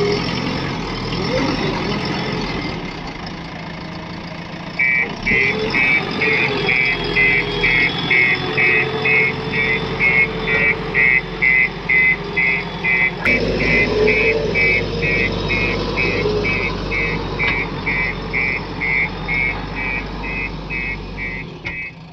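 A heavy diesel machine's engine runs steadily. About five seconds in, a reversing alarm starts beeping at an even rhythm of roughly two beeps a second.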